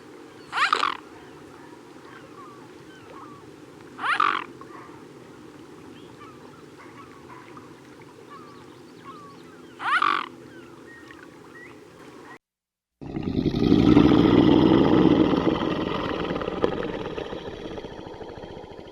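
An animal calls three times, short and loud, a few seconds apart, over a faint background with small bird chirps. After a break comes a loud, rough, noisy sound that slowly fades.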